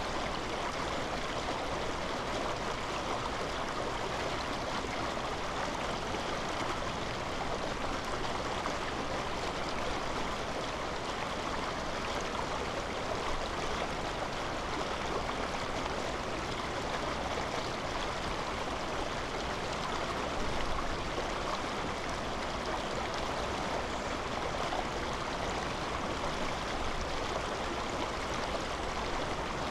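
Running water: a steady rushing noise.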